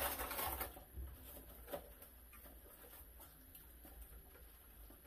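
Quiet eating at a table with fast-food packaging: a short crinkle of paper wrapping near the start, then a few small clicks and rustles of food being handled.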